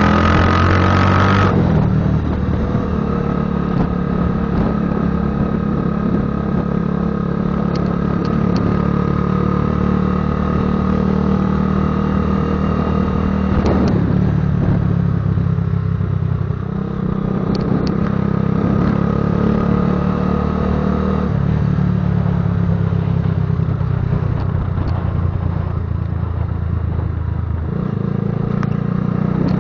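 Patagonia Eagle motorcycle's engine and exhaust running with a rumble while under way. The engine note shifts abruptly in pitch several times, about 2, 14, 16 and 21 seconds in and near the end.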